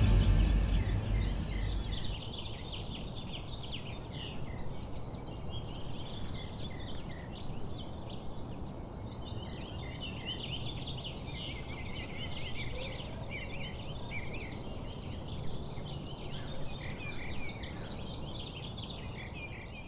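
Birdsong: several birds singing with many quick chirps and trills over steady low background noise, while music fades out in the first two seconds.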